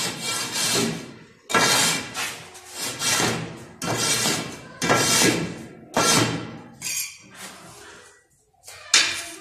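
Background music with a steady beat, about one strong hit a second.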